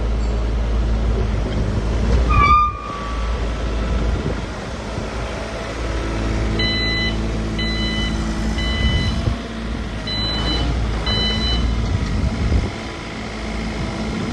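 Sany SY35U mini excavator's diesel engine running steadily. A short high squeal comes about two seconds in, and from about halfway a travel alarm beeps roughly once a second, the sign that the machine is tracking.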